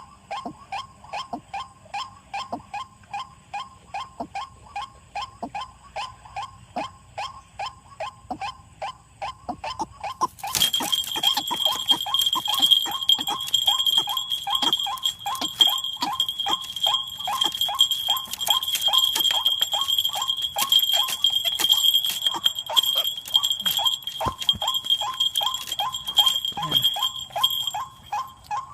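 White-breasted waterhen (burung wak-wak) calling in a long steady series of short repeated notes, about three a second. About ten seconds in, a steady high-pitched shrill tone joins the calls and the whole grows louder.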